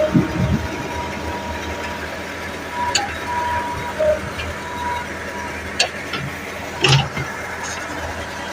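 Massey Ferguson 385 tractor's diesel engine running steadily, with a few sharp knocks, the loudest about seven seconds in.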